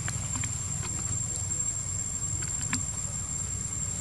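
Steady low outdoor rumble with a thin, high, steady tone and a few faint scattered clicks.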